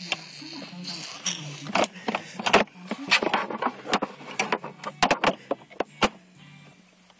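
Seiko Melodies in Motion wall clock running, with a low steady tone that steps in pitch and many short clicks and knocks. The sound falls away about a second before the end.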